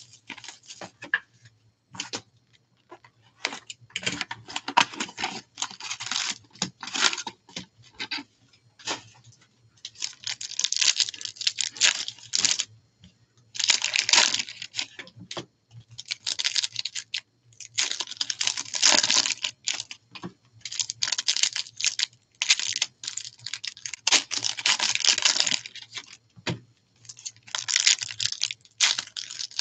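Plastic shrink wrap being peeled off a box of hockey trading cards, then a foil card pack crinkling and tearing open, in irregular bursts of crackling with short pauses between.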